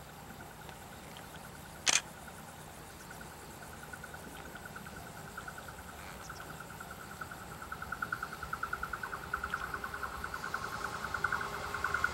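Insects chirping in a steady pulsing trill, with one sharp click about two seconds in. Toward the end the sound swells as the Shinano Railway 115 series electric train approaches along the track.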